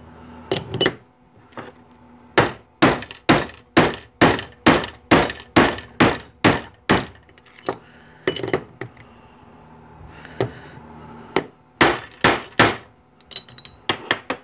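Ball-peen hammer striking a steel bushing driver, knocking a bushing out of a 4L60E transmission's sun gear. There is a quick run of about fifteen sharp metallic blows at roughly three a second, then a few more in short groups, with lighter clinks near the end.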